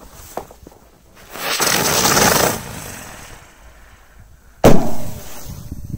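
A Blitz firework hissing loudly for about a second and a half, then one sharp bang about two seconds later. The speaker thinks it had landed upside down and would not take off, so it burned and exploded on the ice.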